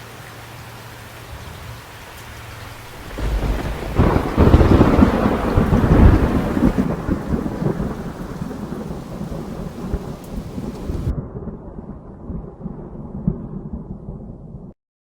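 Steady rain, then about three seconds in a loud thunderclap that rumbles on for several seconds and slowly dies away under the rain. The sound cuts off abruptly near the end.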